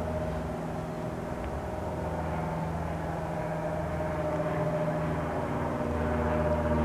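Cessna 172S Skyhawk SP's four-cylinder Lycoming piston engine and propeller droning steadily as the plane flies toward the listener, growing gradually louder.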